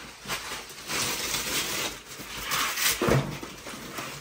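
Wrapping paper rustling and tearing as a gift box is unwrapped, with a short low thump about three seconds in.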